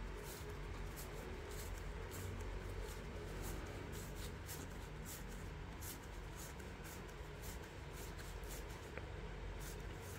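UNO Platinum Edition playing cards being dealt one at a time from one hand into a fan in the other, a string of light papery flicks and slides at an uneven pace.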